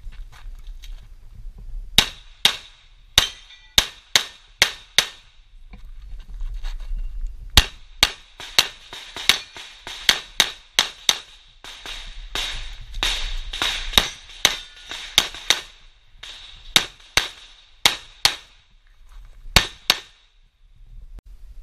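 Handgun shots fired during a practical pistol shooting stage, in quick pairs and fast strings of several dozen shots in all. The strings break off for a second or two at times, and the last pair comes about a second before the end.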